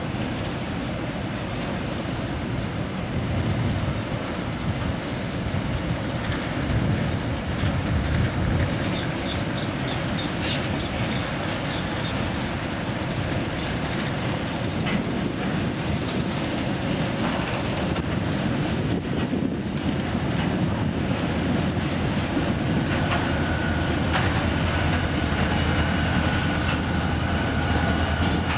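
Freight train of open wagons rolling past with a steady rumble and wheels clattering on the rails. In the last few seconds thin, steady high-pitched wheel squeal joins in over a stronger low hum.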